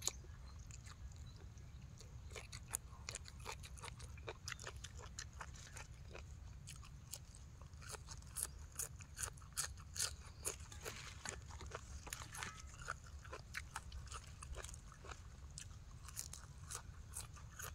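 Close-up eating sounds of papaya salad and raw greens: many sharp, crisp crunches and bites with chewing between them, coming thickest in the middle.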